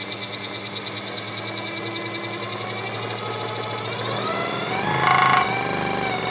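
Scheppach SD1600V scroll saw running, its pitch rising from about three and a half seconds in as the speed control is turned up. Near the five-second mark the saw gets briefly louder for about half a second, then settles into steady running at the higher speed.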